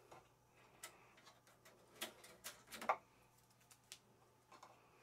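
Faint, scattered clicks and taps of hard plastic as a hand works a transport clip free inside a 3D printer's frame. The loudest clicks come about two seconds in and just before three seconds.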